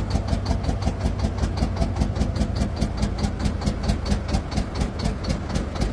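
Heavy truck diesel engine turning with an even rhythmic beat of about five pulses a second over a steady low hum, during attempts to restart a truck whose filter is clogged with water and dirt.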